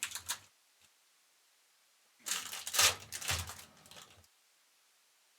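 Trading cards being handled close to the microphone: a short rustle at the start, then a cluster of sliding, flicking and clicking noises from about two to four seconds in.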